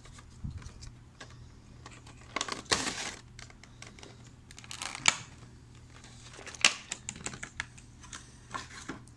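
Handling and unpacking of a boxed Funko Pop vinyl figure: irregular clicks and taps from the cardboard box and crinkling rustles of the clear plastic bag as the figure is pulled out of it.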